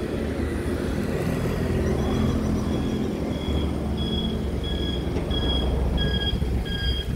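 An electronic railway warning chime beeping steadily, about one and a half times a second, starting about two seconds in. This kind of trackside alarm sounds when a train is approaching. Under it runs a low rumble of wind on the microphone.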